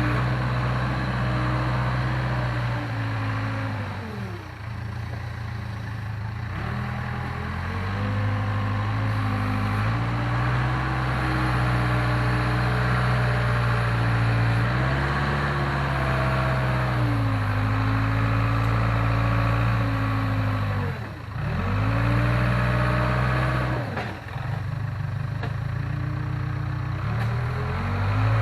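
Case 580K backhoe loader's diesel engine working under load, its speed rising and falling again and again, dipping sharply a few times as it is throttled down and back up.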